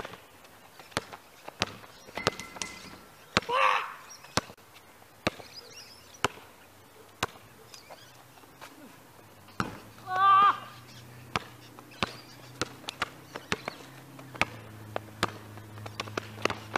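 A basketball being dribbled and bounced on an outdoor asphalt court during one-on-one play: sharp, irregular bounces that come faster near the end. Two brief shouts stand out, one about three and a half seconds in and a longer one about ten seconds in.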